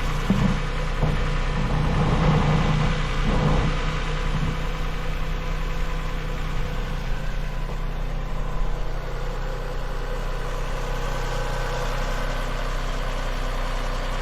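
Toyota 1MZ-FE V6 engine idling steadily, just started after a fresh oil and filter change.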